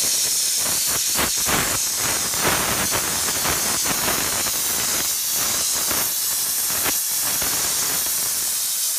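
McCulloch MC1275 steam cleaner jetting steam through its brush tip along a tile grout joint: a loud, steady hiss with an irregular rough scrubbing crackle, loosening the grime in the grout.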